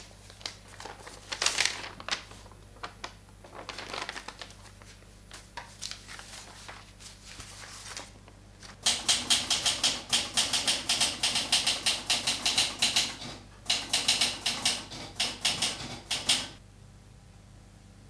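Paper rustling and being handled, then fast typewriter keystrokes in two quick runs from about halfway through, with a brief pause between them, stopping shortly before the end.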